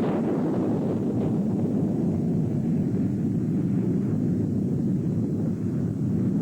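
A steady, low rumbling roar of noise with no tone or voice in it.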